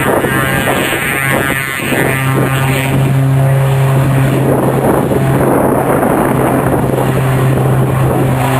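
Loud, steady aircraft engine noise, a continuous rush with a constant low hum underneath.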